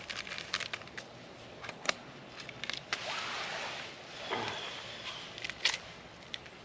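Crinkling and crackling of a small coffee packet being handled and opened, a string of sharp little clicks. About three seconds in comes a short rush of noise as the coffee is tipped into the pot.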